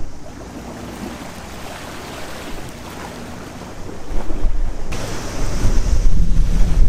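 Sea waves washing against a seawall, with steady wind. About four seconds in it grows louder, with wind rumbling on the microphone.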